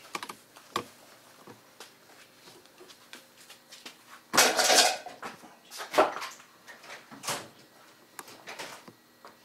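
Scattered knocks and clicks from handling work, with a louder short scraping, rustling burst about four seconds in and another sharp knock a second later.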